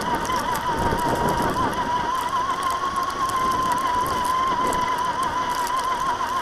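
Traxxas TRX-4 RC crawler driving through snow, heard from its onboard camera: a steady high-pitched electric whine holding near one pitch and wavering slightly, over a gritty rustle with faint mechanical clicks.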